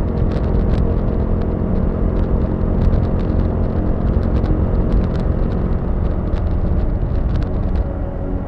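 Motorcycle engine running steadily while riding, with a heavy low rumble. It eases slightly near the end.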